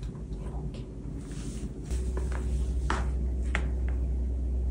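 A few light clicks and taps over a steady low hum, which gets louder about two seconds in.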